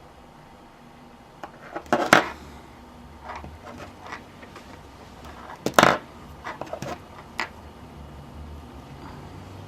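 Wire cutters snipping through the power jack's leads: two sharp clicks about four seconds apart, one short wire and one long, with lighter clicks and taps of the tool being handled between and after.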